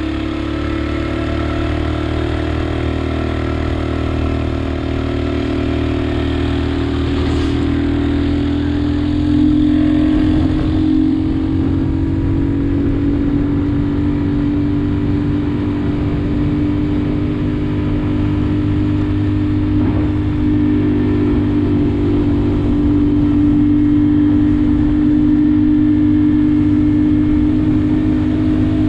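Motorbike engine running steadily under way, its note holding a fairly even pitch with a slight lift in loudness about ten seconds in.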